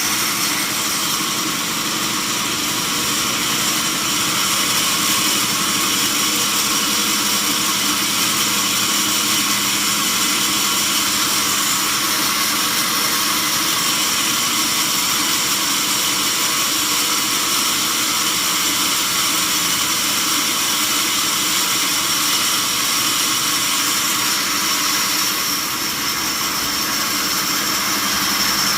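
Sawmill saw running steadily through a mahogany log, a continuous high whine made of several steady tones over a hiss, with a brief slight dip near the end.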